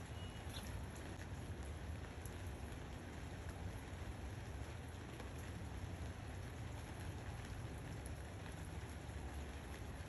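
Steady rain falling, an even hiss with faint scattered drops ticking through it.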